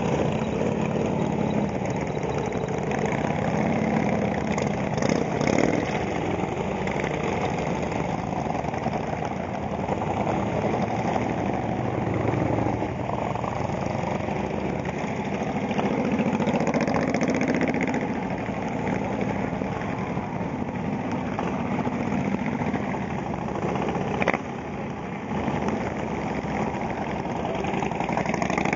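Motorcycle engines, mostly large touring bikes, idling and pulling away one after another, each getting louder as it passes. A single sharp click sounds near the end.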